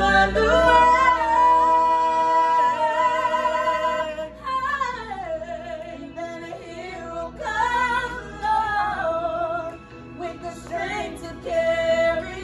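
A young female lead singing a wordless stretch of a slow pop ballad with a small group of student singers: long held notes, a falling slide about four and a half seconds in, then bending vocal runs.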